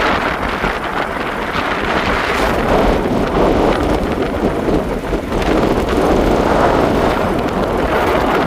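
Wind rushing steadily over the microphone of a moving motorbike, with the running and road noise of the ride beneath it.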